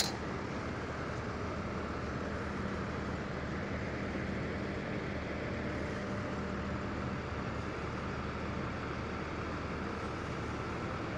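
Large machinery running steadily: an even rushing noise with a low steady hum under it that fades about seven seconds in.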